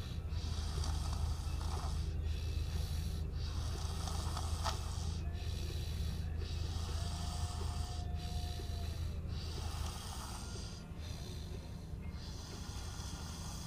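A person snoring in quick, regular breaths, about one every second or so, over a steady low hum that fades about ten seconds in.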